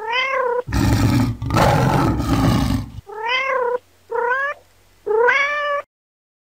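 Domestic cat meowing four times, each meow rising and then falling in pitch. A loud, rough, noisy stretch of about two seconds comes between the first and second meows. The sound cuts off abruptly near the end.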